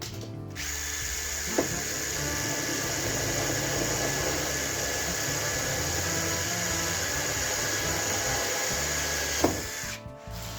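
A power tool runs steadily for about nine seconds with a constant high whine, starting and stopping with a click at each end, over background music.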